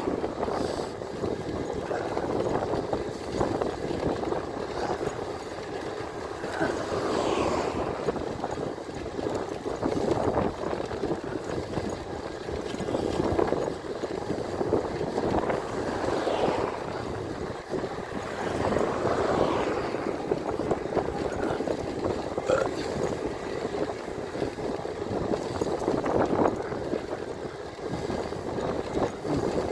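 Wind rushing over the microphone and road noise from an e-bike riding along a street. The noise is steady and rises and falls every few seconds.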